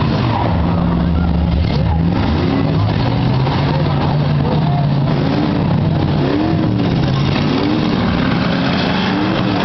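Eight-cylinder demolition derby cars' engines revving and running hard, several at once, their pitch rising and falling repeatedly as they push against each other.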